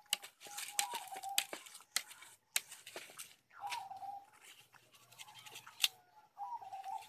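Long knife shaving the rind off a stalk of green sugarcane: a series of sharp, irregular cutting and tearing strokes.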